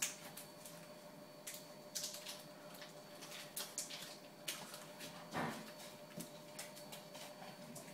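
An English bulldog moving about on a tiled floor: scattered light clicks and taps, with one duller, louder knock about five seconds in. A faint steady hum runs underneath.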